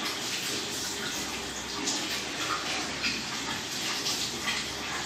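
A steady hiss with a few scattered faint sticky clicks as a strip of clear slime is stretched slowly between two hands.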